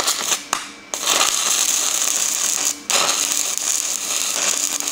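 Stick-welding arc with a 3/32-inch 7018 electrode at 85 amps laying a tack weld: a few short sputters as the rod is struck, then a steady crackling burn, broken for a moment about three seconds in.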